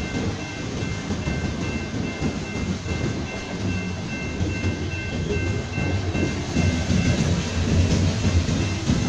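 Freight train rolling past: a steady low rumble and clatter of wagon wheels on the rails. A faint, steady high whine sits over it until about two-thirds of the way through.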